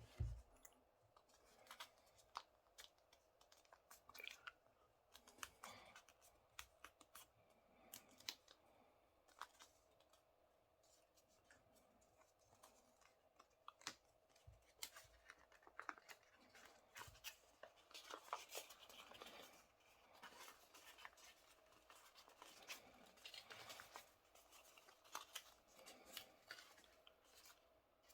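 A square sheet of paper being folded and creased by hand: faint, scattered crinkles, rustles and small taps, with a few louder crackles as folds are pressed flat.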